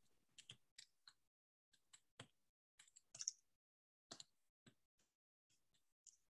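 Faint, irregular clicks and taps from a computer keyboard and mouse, a few a second with short pauses, over near silence.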